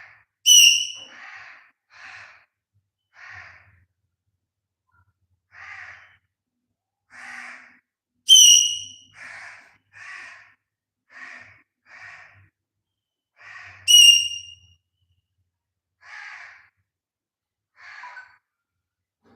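Pet parrot calling: three loud, shrill screeches, each slightly falling in pitch, with many softer, raspy short squawks of chatter in between, about one a second.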